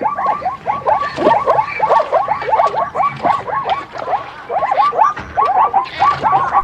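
An animal calling in a fast series of short calls, each sliding down in pitch, about three or four a second, with a brief pause a little past the middle.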